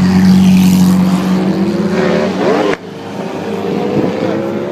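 Classic sports car engines running close by: a loud, steady engine note fades over the first two seconds with a brief pitch swoop, then cuts off abruptly and a quieter engine carries on.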